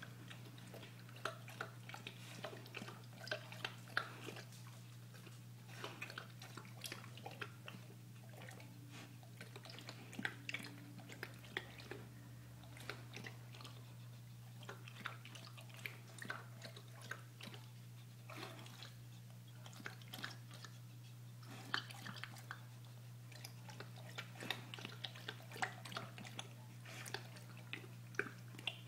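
Pit bull snapping and slurping at water in a stainless steel bowl, going after floating treats: irregular wet splashes, slurps and chewing sounds. A steady low hum runs underneath.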